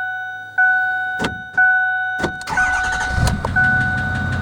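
A vehicle warning chime dings about once a second. The 2008 Ford F-250's 6.4 L Power Stroke V8 diesel cranks and starts about two seconds in, with a few sharp clicks just before it, and runs on beneath the chime.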